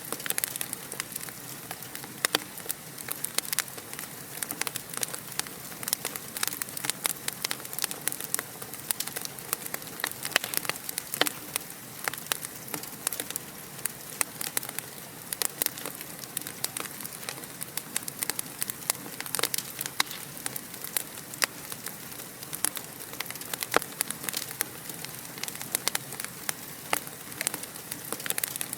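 Wood fire crackling in a fireplace: many small, irregular pops and snaps, several a second, over a steady hiss.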